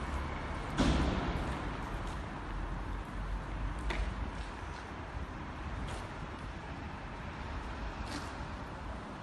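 Outdoor background noise: a steady low rumble with a few scattered clicks, and a single louder thump about a second in.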